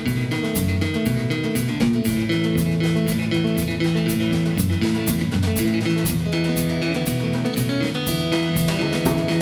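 Instrumental music: a Martin 00-28 steel-string acoustic guitar fingerpicked, with a drum kit keeping a steady beat.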